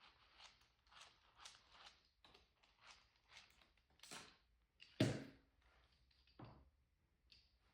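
Packaging and parts being handled: short rustles and small clicks throughout, with a sharp knock about five seconds in and a softer one a second and a half later.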